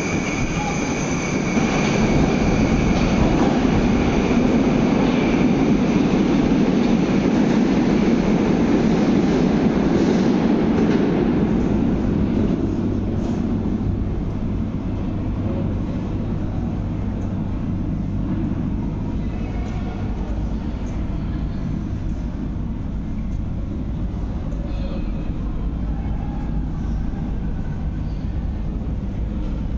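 Metro train running, its noise building and staying loud for about the first ten seconds, with a high whine at first, then fading away to a low steady hum.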